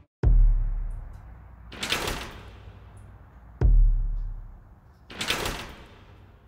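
Two deep booming thuds about three and a half seconds apart, each with a long low decay. Between them are two short hissing swells that rise and fade.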